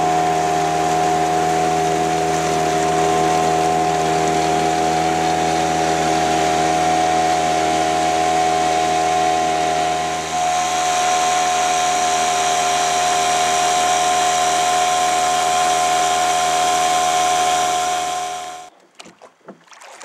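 Outboard motor pushing a wooden river boat, running at a steady, unchanging pitch with a brief dip about halfway through, then cutting off abruptly near the end, leaving faint water sounds.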